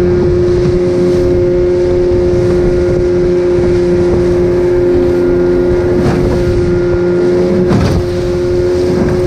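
A fishing boat's motor running at a steady cruising speed, one constant drone over a loud rushing noise, as the boat motors out across open water.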